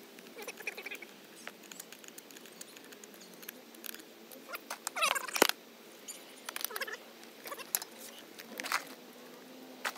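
Scattered metal clicks and clinks of an adjustable wrench and cart wheel, axle and bolt parts being handled and tightened, with one sharp clank about five and a half seconds in.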